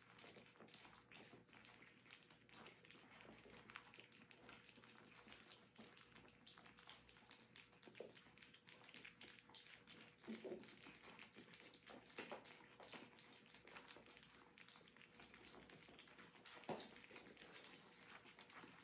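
Three-week-old French bulldog puppies licking and lapping soft food off rubber lick mats: a faint, constant patter of small wet smacks and clicks, with a couple of louder soft knocks about halfway and near the end.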